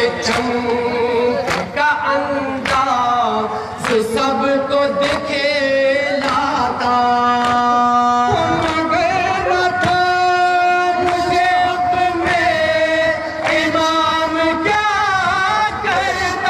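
Men chanting a noha, a Shia mourning lament, amplified through microphones: a lead reciter holds long wavering notes and a second voice joins in. Sharp slaps recur about once a second through the chant, the beat of chest-beating (matam).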